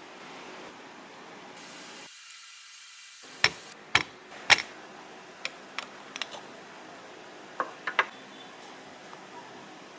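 Coffee-making equipment being handled: a brief soft hiss, then a run of sharp clicks and knocks, the three loudest close together about three and a half to four and a half seconds in, with lighter clicks after.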